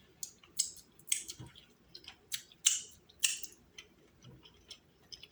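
King crab shell cracking and crunching as a leg or knuckle is broken open, a run of irregular sharp cracks, the loudest about halfway through.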